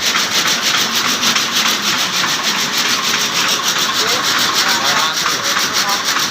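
Satay skewer and chopstick polishing machine running, the sticks rubbing and rasping against each other in a steady, fast, even pulse.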